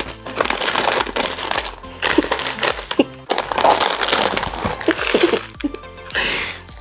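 Background music, with plastic snack and food packets crinkling and rustling as they are handled and lifted out of a box.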